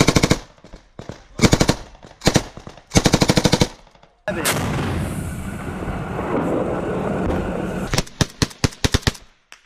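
Small-arms automatic fire in short bursts, several quick bursts of rapid shots in the first four seconds. A steady rushing noise starts suddenly and runs for about four seconds, then a quick string of separate shots comes near the end.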